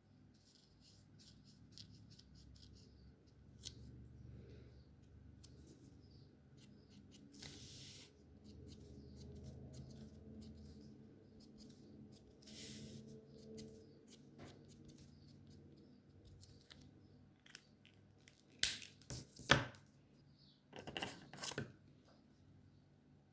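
Alcohol markers colouring on paper: faint strokes and small taps, with two clusters of sharp clicks near the end.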